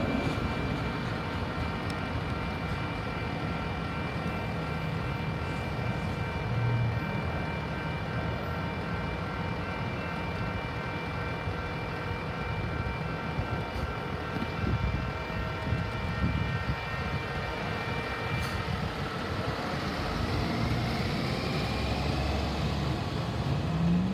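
Railroad grade-crossing bell ringing steadily over the rumble of the last freight cars rolling past; the bell stops about three-quarters of the way through. A school bus then drives past close by, its engine rising in pitch as it accelerates near the end.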